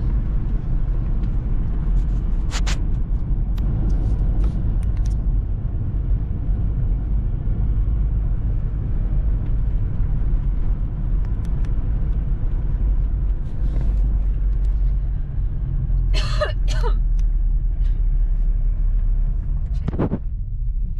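Car engine and tyre noise heard inside the cabin while driving, a steady low rumble. There is a short burst of higher sounds about three-quarters through and a single knock near the end.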